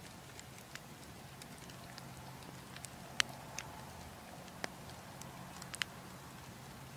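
Wood fire crackling: scattered, irregular sharp pops over a soft steady background, the loudest pop about three seconds in and a quick pair near the end.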